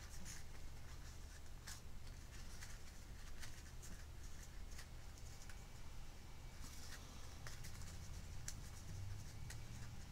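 Faint rustling and crinkling of paper as the petals of a paper flower are folded up by hand, with scattered light ticks, over a low steady hum.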